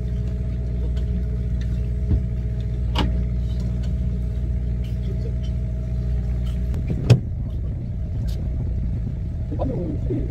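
A boat's engine runs with a steady low hum, and its low part shifts about seven seconds in. Short sharp knocks sound over it, the loudest about seven seconds in.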